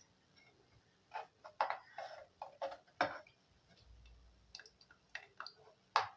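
Irregular light clicks and clinks of kitchen utensils on a cooking pot, about a dozen spread unevenly.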